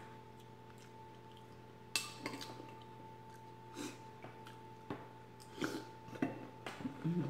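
A spoon clinking and scraping against a ceramic soup bowl while chowder is scooped, with a sharp clink about two seconds in. Soft mouth sounds of eating a spoonful follow near the end, over a faint steady hum.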